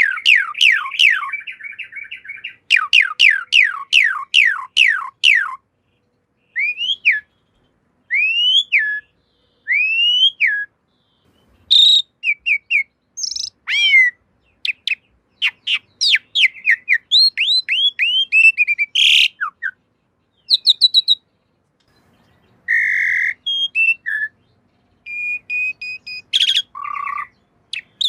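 Asian pied starling (jalak suren) singing. It opens with runs of rapid falling whistles. A few drawn-out whistles follow that rise and then fall. After that comes a quicker jumble of chirps and whistles, and near the end harsher, scratchier calls, with short pauses between phrases.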